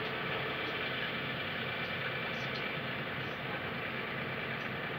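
Diesel lorry engine running steadily at low revs.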